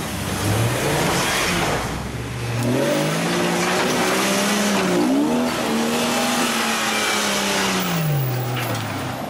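Jeep Grand Cherokee's engine revving up over the first few seconds, held at high revs, then dropping back near the end, with the noise of its tyres spinning in loose dirt.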